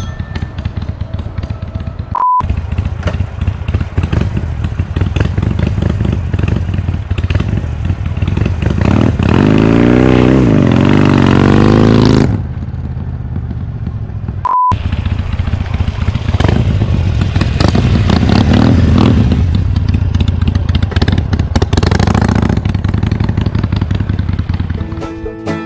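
Harley-Davidson Sportster Iron 883's air-cooled 883 cc V-twin running loud through an open Jekill & Hyde flap exhaust. About nine seconds in it is revved hard, the pitch climbing for a few seconds, then the revs drop off suddenly and the engine runs on with a few smaller revs.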